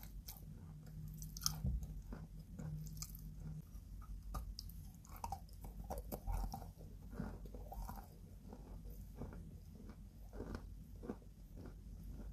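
White chalk chunks being bitten and chewed close to the microphone: irregular dry crunches throughout, the loudest about one and a half seconds in.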